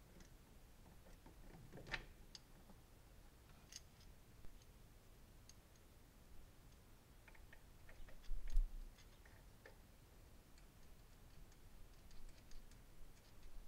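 Faint scattered clicks and small knocks of fuel injectors and their plastic electrical connectors being handled at an engine's fuel rail, with a dull low bump a little past the middle.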